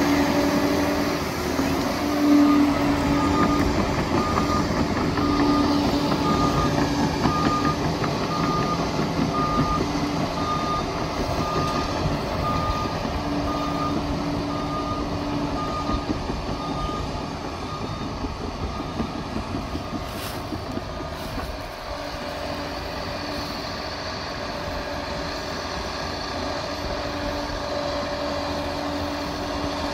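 Liebherr 746 crawler dozer's diesel engine running steadily under work, with its reversing alarm beeping about once a second for roughly the first half as the machine backs up, then falling silent.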